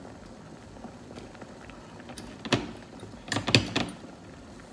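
Kitchen handling clatter: a single sharp knock about two and a half seconds in, then a quick run of clinks and knocks around three and a half seconds.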